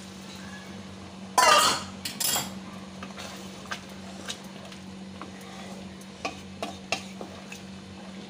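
A spatula stirring and scraping through a wet curry in a wok, knocking against the pan every half second to second, with one loud clatter about one and a half seconds in. A steady low hum runs underneath.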